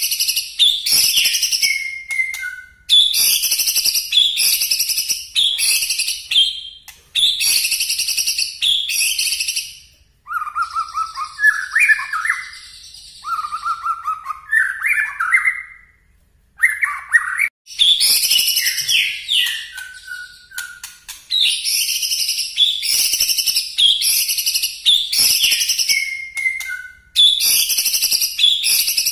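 White-rumped shama (murai batu) singing loud, sharp, very high-pitched bursts of song, each about two seconds long with short breaks between. This is the shooting 'nembak' style of song. Around the middle it drops to a quieter, lower-pitched stretch of short warbled phrases for several seconds before the loud bursts return.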